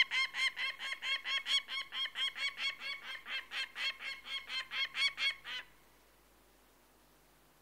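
Peregrine falcon giving its harsh, rapidly repeated "kak-kak-kak" alarm call, about five notes a second, which stops suddenly just over five seconds in.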